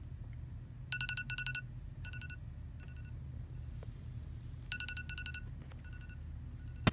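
iPhone alarm going off: a quick run of high beeps followed by a few slower single beeps, the pattern repeating about every four seconds.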